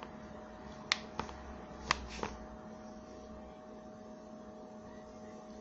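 Two pairs of light clicks about a second apart, from a finger tapping and swiping on a smartphone's touchscreen, over a faint steady hum.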